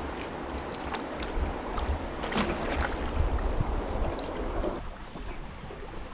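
Paddling an aluminum canoe on moving river water: a steady wash of water with the odd splash or knock of a paddle, and wind rumbling on the microphone.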